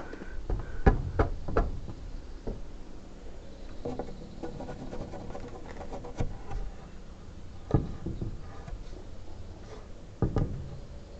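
Wood being handled: irregular knocks of timber pieces, a few close together about a second in and single ones spread through the rest, with rustling between them.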